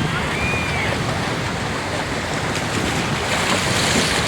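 Wind buffeting the microphone over the hiss of surf on a beach, with a brief faint high call about half a second in and the surf hiss swelling near the end.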